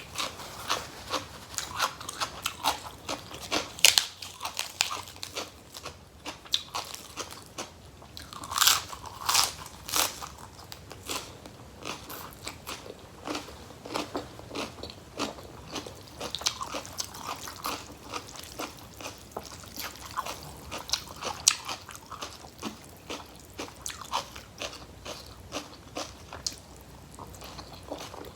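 Close-miked eating: a person biting and chewing crunchy food, with many sharp crunches throughout, loudest about 4 seconds in and again around 9 seconds in.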